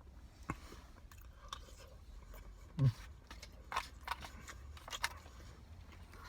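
Eating sounds of a man chewing chicken biryani: a few sharp, wet mouth clicks and smacks spaced out over several seconds, with one brief low vocal sound about three seconds in.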